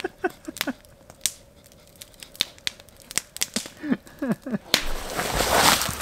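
Campfire crackling, with sharp irregular pops from the burning wood. Near the end, footsteps crunch through snow and brush against branches.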